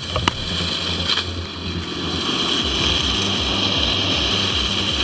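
Heavy forestry machinery running steadily: a constant engine noise with a steady high whine over a low throb, growing a little louder about two seconds in.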